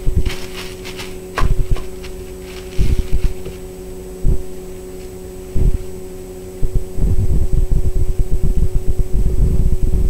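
Steady electrical hum with repeated low rumbling bumps that turn into a dense, continuous rumble from about seven seconds in. Light crinkling of a plastic bag under the hands in the first two seconds.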